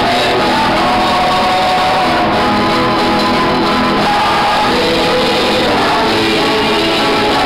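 Male voices singing together, accompanied by several acoustic guitars, in a song rehearsal.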